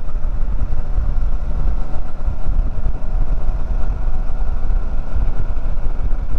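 Royal Enfield Super Meteor 650's 648 cc parallel-twin engine running at a steady cruising speed, with wind rushing over the microphone.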